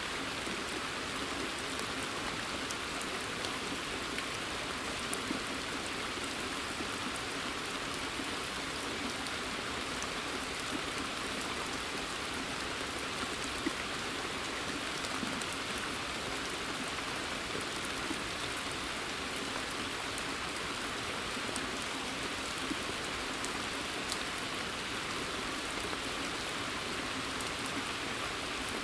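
Steady rain falling on a pond and the surrounding forest, a continuous even hiss with scattered faint drop ticks.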